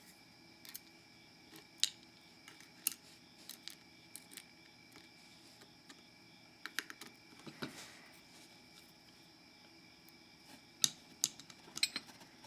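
Small metal lock pins and tools being handled on a work surface: scattered faint clicks and ticks, with a quick cluster of clicks near the end.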